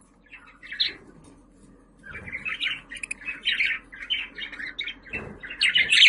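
Budgerigar chirping: a single chirp about a second in, then a quick run of chattering chirps from about two seconds in, getting louder near the end.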